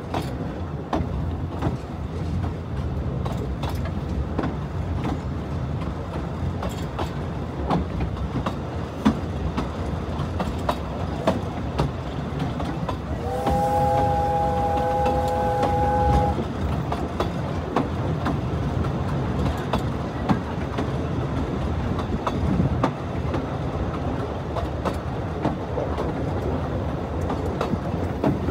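Narrow-gauge steam train running, heard from an open coach: a steady rumble of wheels with irregular clicks over the rail joints. About halfway through, the locomotive gives one whistle blast of about three seconds, several notes sounding together.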